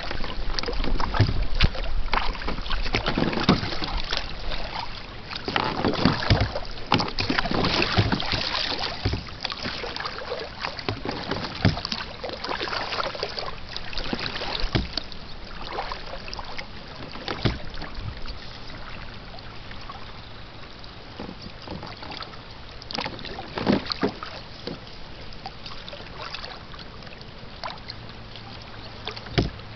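Kayak paddle strokes and water splashing around the hull, with scattered irregular knocks. It is busiest in the first half and calmer after about eighteen seconds.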